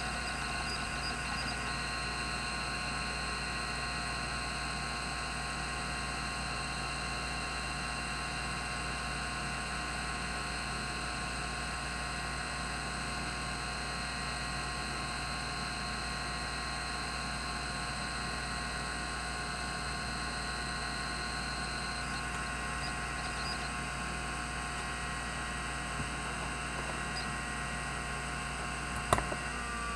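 Rodime RO352 3.5-inch hard drive with its spindle running at 3600 RPM: a steady whine made of several even tones over a faint hiss. A single sharp click comes near the end.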